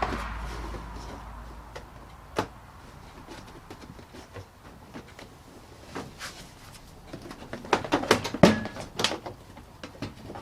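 Scattered clicks and knocks of hand tools and plastic parts being handled while a car's front bumper cover is unbolted and unclipped. A quick run of louder knocks and clatters comes about eight seconds in.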